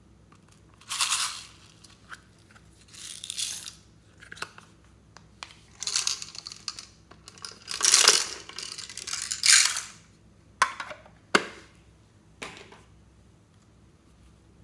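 Hard plastic toy makeup cases being handled: a series of short plastic scraping and rustling sounds, then three sharp plastic clicks over the last few seconds.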